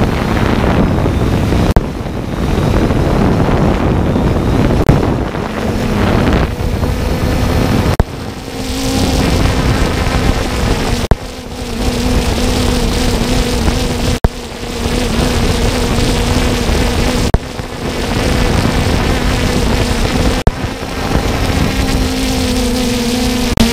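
Camera drone's motors and propellers buzzing with a steady hum, under heavy wind rush on its onboard microphone that drops away and comes back every few seconds.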